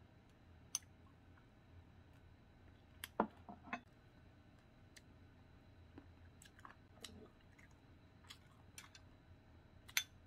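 Quiet eating sounds: metal chopsticks clicking against ceramic bowls and soft chewing, as a series of scattered sharp clicks, the loudest few about three seconds in and another near the end.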